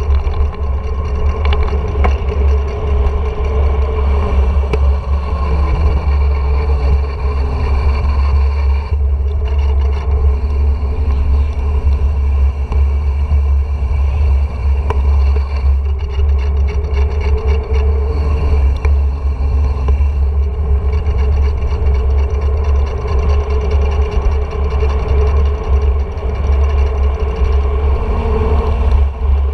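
Wind rumbling and buffeting on an action camera's microphone during a fast mountain-bike descent, a loud steady roar with tyre noise from the asphalt underneath.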